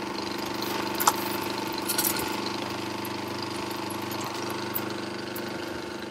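A motor running steadily in the background, an even hum with a couple of faint clicks over it.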